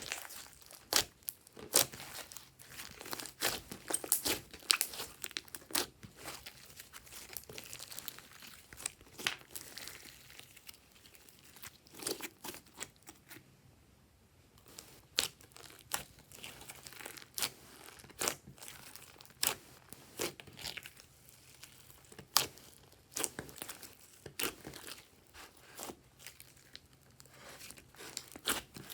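Hands squishing, stretching and folding glossy slime, making irregular sticky clicks, pops and crackles, with a short lull about halfway through.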